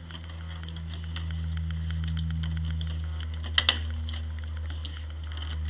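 A dog mouthing and nudging an empty plastic water bottle on cobblestones: light plastic clicks and crackles, with two sharp clicks close together about three and a half seconds in, over a steady low hum.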